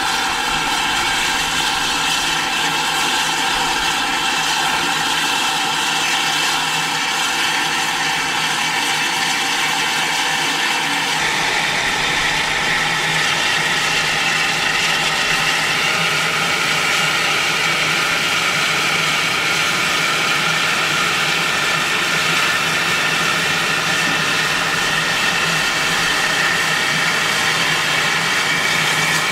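Powered railway turntable's drive running steadily as it turns a steam locomotive, a constant mechanical hum with a whine that grows stronger about eleven seconds in.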